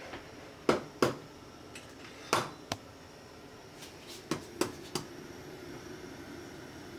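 An eggshell being knocked against the rim of a bowl to crack it: about seven sharp taps, loosely in pairs. The two loudest come about a second in, and the rest follow over the next four seconds.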